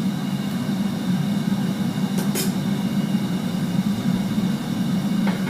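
Propane forge burner running with a steady low roar, with a couple of faint light taps.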